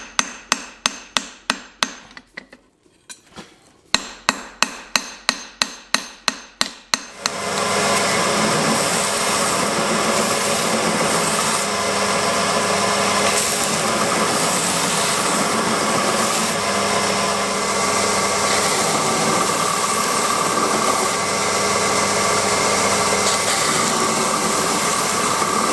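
Hammer blows on hot steel over an anvil, about four sharp strikes a second, pausing briefly about two seconds in and stopping about seven seconds in. A loud, steady machine noise with a faint whine then takes over.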